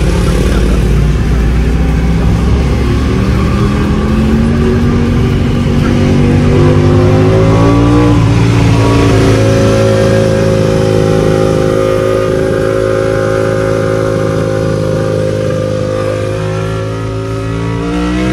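Racing motorcycle engine under hard acceleration, its pitch climbing for several seconds, then held high and steady, easing a little near the end.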